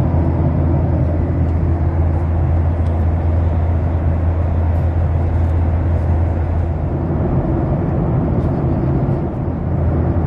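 Steady cabin drone of a Boeing 737-800 in flight, heard from inside the passenger cabin: a low hum from the CFM56-7B engines under a constant rush of airflow noise.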